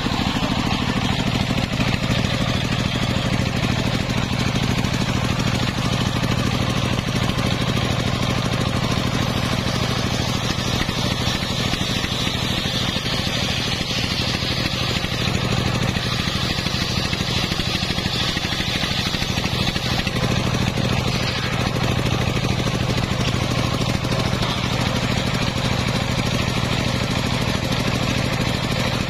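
Engine-driven circular saw bench running steadily: a low engine hum with the hiss of the large disc blade as it rips lengthwise through a waru (sea hibiscus) log.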